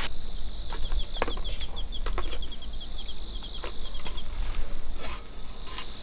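Thick tomato broth simmering in a clay pot, with irregular bubbling pops. Behind it, insects chirping rapidly and high for most of the first four seconds.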